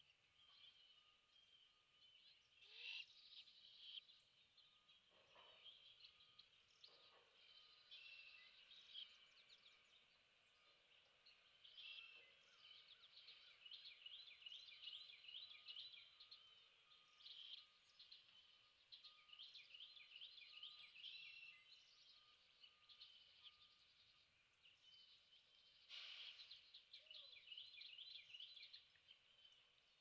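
Faint background bird calls: many rapid, repeated high chirps and trills, with a couple of louder calls about three seconds in and again near the end.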